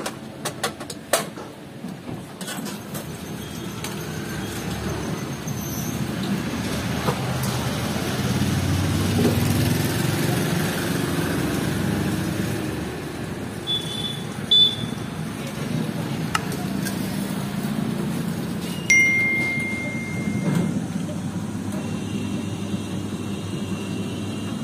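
Automatic sugarcane juice machine running as cane is crushed: a steady low mechanical hum that builds over the first several seconds. Plastic jugs clatter under the spout near the start, and a few sharp knocks come later.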